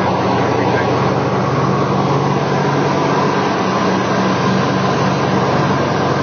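Piston engines of a 1955-built airplane running steadily, heard inside the cockpit: a constant low drone under loud, even cabin noise.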